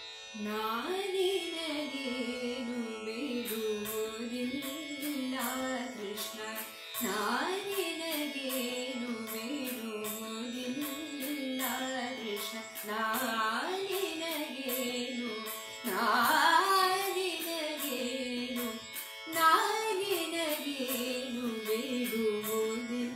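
A woman singing a Kannada devaranama in Carnatic style, her melody sliding through ornamented phrases over a steady drone, with light percussion strokes.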